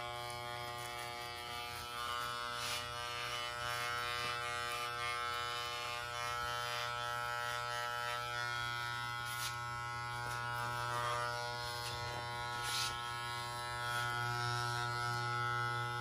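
Wahl electric hair clipper buzzing steadily as it cuts hair: a constant hum with many overtones, with a few faint clicks and a slight rise in loudness near the end.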